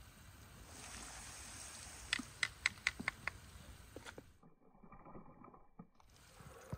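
Potatoes and onions sizzling in a hot frying pan, with a quick run of sharp clicks and pops about two to three seconds in as the food is tossed. The sizzle drops away for about a second and a half past the middle, then returns.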